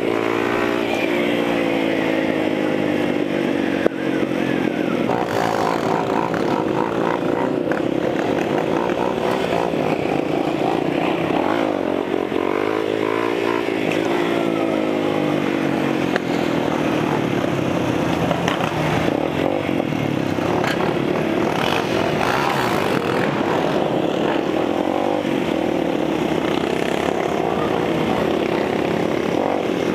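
Motorcycle engine running on the move, its revs rising and falling steadily, with other engines of the group (four-wheelers and another dirt bike) mixed in. Wind rush over the microphone underlies it.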